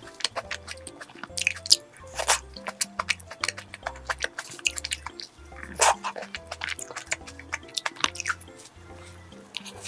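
Close-up eating sounds of a fruit tart being bitten and chewed: many short, sharp clicks and smacks, with louder bites about two seconds in and near the middle. Background music with a repeating bass line plays underneath.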